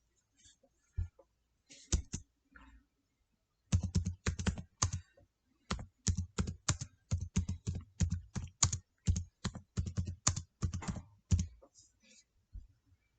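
Typing on a computer keyboard close to the microphone: a few scattered key clicks, then a quick irregular run of taps from about four seconds in that stops shortly before the end.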